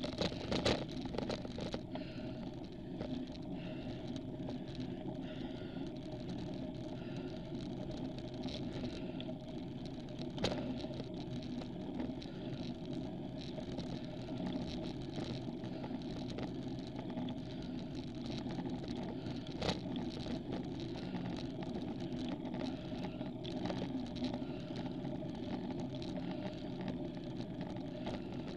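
Steady hum and rumble of a road bicycle climbing slowly, tyres and drivetrain heard through a handlebar-mounted camera, with a sharp knock about half a second, ten seconds and twenty seconds in.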